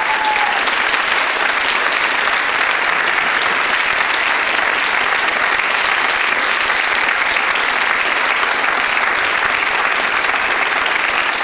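Theatre audience giving dense, steady curtain-call applause as the performers take their bow.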